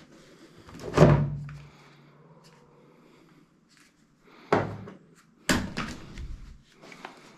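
Three sharp mechanical clacks from an airsoft pistol, the first and loudest about a second in, then two more about four and a half and five and a half seconds in, each with a short ringing tail.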